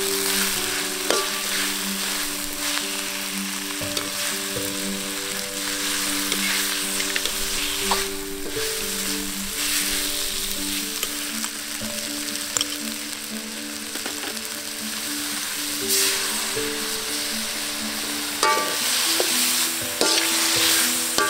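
Food sizzling as it is stir-fried in a hot pan, with a utensil clicking against the pan now and then. Background music with a melody plays over it.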